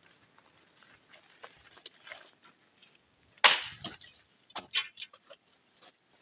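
Dry palm fronds and twigs crackling and snapping as they are picked up and handled by hand, with one sharp crack about three and a half seconds in and a few quick clicks soon after.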